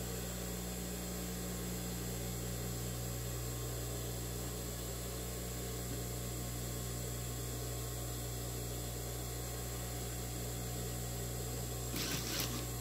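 Steady low hum from an industrial sewing machine while the fabric is being lined up. About twelve seconds in, the machine starts stitching with a quick run of clicks.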